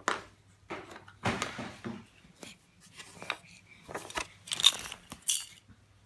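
A baby handling a picture puzzle board and its pieces: irregular clatters, knocks and scrapes, the loudest a little before five seconds in.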